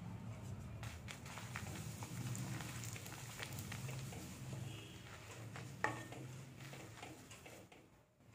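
Hot oil sizzling and crackling in a steel pan as fenugreek powder is stirred in with a wooden spatula, with a sharp tap about six seconds in. The sizzle dies away near the end.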